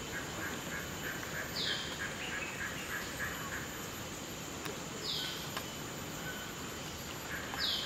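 Forest ambience: a bird repeats a short, high, falling call about every three seconds, three times, over softer runs of quick notes and a steady high-pitched insect drone.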